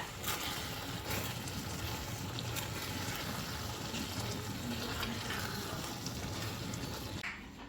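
Food cooking in a pot on the stove: a steady low hiss with a faint hum beneath and a few light clicks.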